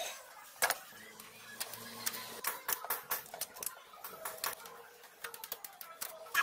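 Irregular small clicks and taps of hands and a tool working a rubber fuel hose onto a metal fuel line and its fittings in a car's engine bay.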